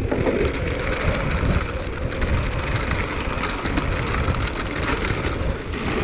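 Mountain bike riding down a dirt downhill trail: tyres crackling over loose ground and the bike rattling, a dense steady patter of small clicks over a low rumble.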